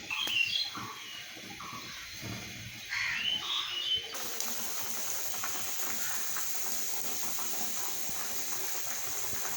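Thin spiced fish-curry gravy of potato and tomato coming to the boil in a pan, a steady hissing bubble that starts abruptly about four seconds in. Before it, a couple of brief rising chirps.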